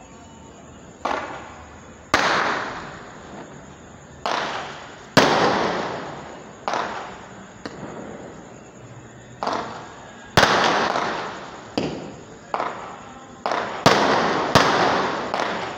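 Aerial fireworks bursting: about fourteen sharp bangs at irregular intervals, each with a long, fading echo, coming faster in the second half.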